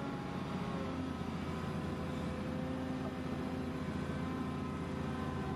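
Radio-controlled model vehicles running: a steady motor whine of several tones drifting slightly in pitch, over a low hum.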